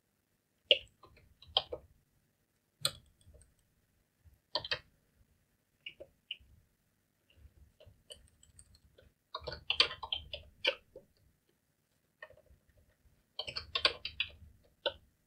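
Typing on a computer keyboard: scattered single keystrokes, then quick runs of keys about ten seconds in and again near the end.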